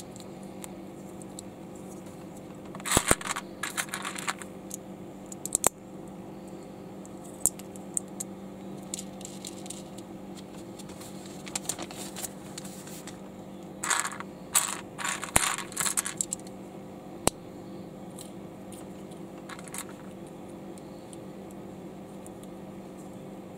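Plastic LEGO bricks clicking and clattering as they are handled and snapped together, in two quick flurries about three seconds in and again around fourteen seconds in, with single clicks between, over a faint steady hum.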